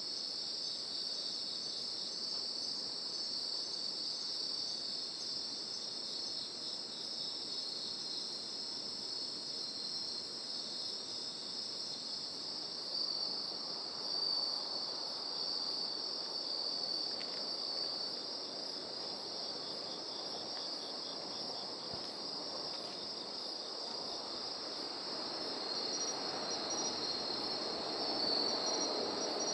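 A night chorus of autumn insects (crickets): a dense, steady high trilling with a fainter, higher chirp repeating two or three times a second. A soft low rushing noise swells in the last few seconds.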